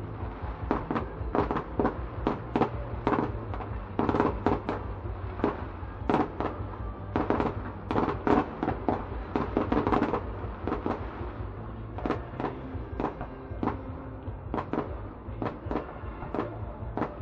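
Fireworks display: aerial shells bursting in a rapid, irregular string of bangs, several a second at times and thickest around the middle.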